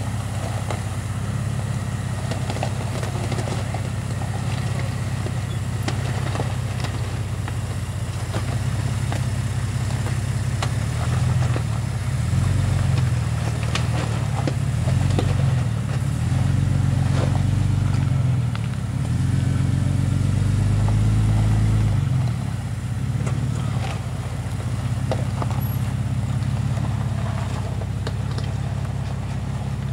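Jeep Grand Cherokee WJ engine working at low speed through a tight switchback on loose rock, running steadily and then revving up and easing off several times in the middle as it pulls under load. The loudest rev comes a little before two-thirds of the way through. Occasional clicks and crunches of loose rock come from under the tyres.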